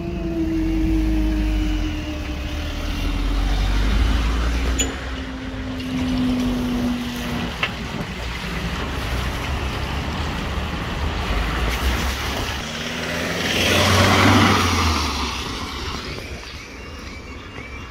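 Railway level crossing reopening: a steady hum, falling slightly in pitch over a low rumble, runs while the road barriers rise and stops abruptly about seven seconds in. About fourteen seconds in, a road vehicle drives over the crossing.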